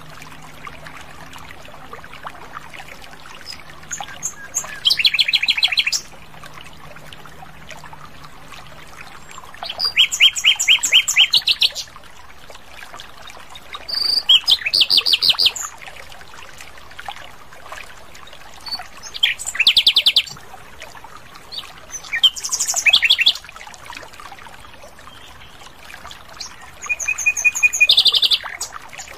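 Common nightingale (sikatan londo) singing clear, loud phrases of rapidly repeated high notes, about six phrases each lasting one to two seconds, with pauses of a few seconds between them.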